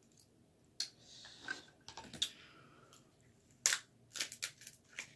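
Close-up eating sounds: chewing with wet mouth smacks and sharp lip clicks, coming in irregular bursts, with a cluster of clicks late on.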